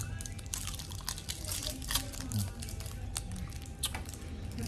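Chocolate wrappers crinkling in irregular short crackles as small chocolates are unwrapped, with background music.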